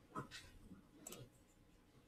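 Near silence with a few faint, brief computer mouse clicks as tools are picked in the toolbar.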